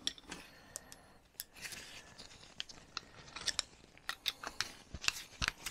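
Irregular small clicks and scrapes of a screwdriver and loose parts on a Stromberg 175CD carburettor body as it is taken apart by hand, with a few sharper clicks in the second half.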